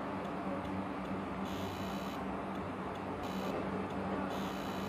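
Breaded chicken bread rolls deep-frying in hot sunflower oil: a steady, even sizzle, with a steady low hum underneath.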